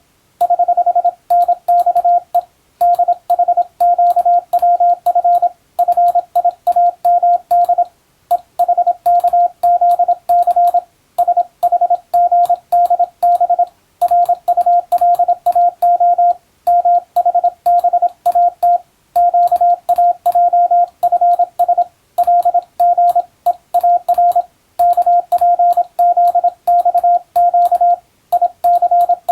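Morse code (CW) sent as a single steady beep tone, keyed on and off rapidly in dots and dashes, with short pauses between letter groups.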